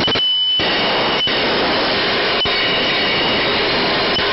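Steady rushing noise of a jet aircraft in flight, heard in the cockpit over the radio intercom, with a faint high steady whine.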